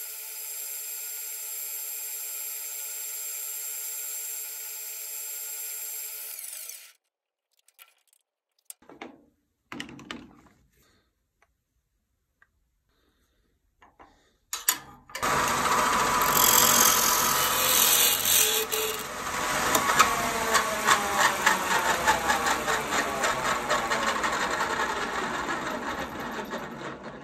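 Wood lathe motor running steadily while a turned finial is sanded, cutting off about seven seconds in; a few faint knocks follow. From about halfway through, a loud mechanical clatter of fast repeated clicks with some falling tones takes over to the end.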